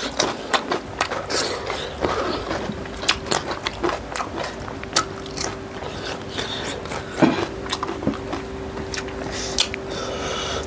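Close-up eating sounds from two people eating fried chicken and rice with their hands: irregular biting, wet chewing and mouth clicks. A steady faint hum runs underneath.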